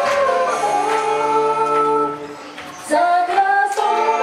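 Pop song with a female voice singing over a backing track, played through a PA. The music drops away for under a second about two seconds in, then comes back in.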